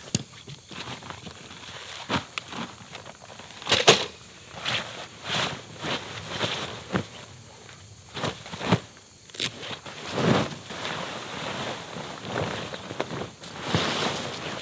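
Heavy tent fabric rustling and scraping as it is unpacked and spread on the ground, with footsteps on dry leaf litter and a few sharper knocks of gear being handled. The sounds come in uneven bursts, the loudest a sharp knock about four seconds in and fabric rustling around ten and fourteen seconds in.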